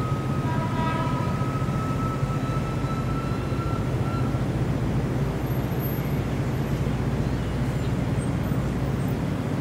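Railway engines idling: a steady low hum, with a faint, thin high tone during the first four seconds.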